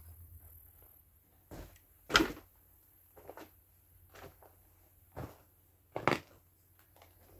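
Footsteps: a run of irregular knocks and thuds about a second apart, the loudest about two seconds in.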